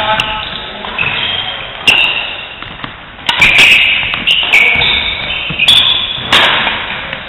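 Doubles badminton rally: sharp racket smacks on the shuttlecock, about one a second, with high squeaks of court shoes on the floor between them.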